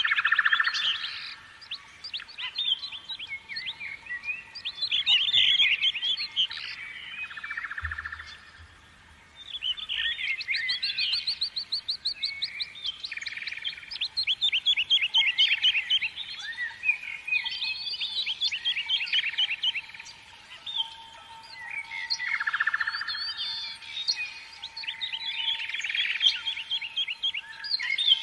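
Birds singing: a mix of chirps and fast trills in phrases with short pauses.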